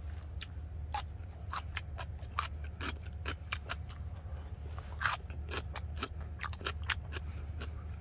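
Close-up chewing of grilled beef: irregular wet mouth clicks and smacks. A steady low hum runs underneath.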